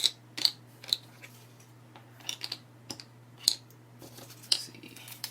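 Pieces of a small toy display stand being handled and fitted: a scattered series of light clicks and taps, with some rustling between them.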